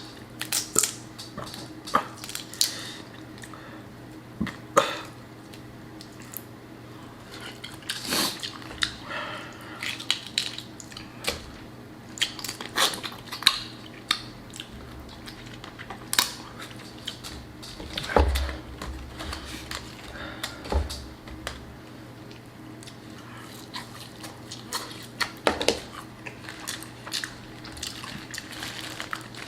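Close-miked eating of boiled crawfish and shrimp by hand: shells cracking and being peeled, wet saucy squishing and chewing, with scattered sharp clicks and knocks.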